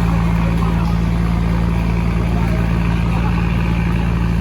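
Fishing boat's engine running at a steady, unchanging low hum.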